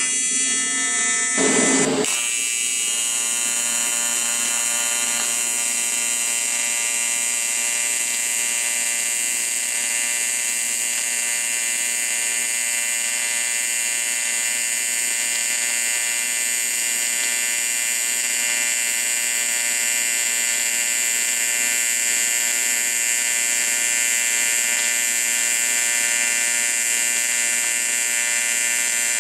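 AC TIG welding arc on aluminum at about 148 amps, giving a steady, high electrical buzz as a horizontal fillet weld is run. The buzz settles to an even tone about two seconds in and holds there.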